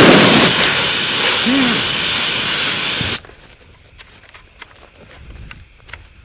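Compressed air from an air-compressor hose blasting sand and dirt, a loud steady hiss that cuts off suddenly about three seconds in. After it come scattered light metallic clicks as the rifle's jammed action is worked by hand after a failure to extract.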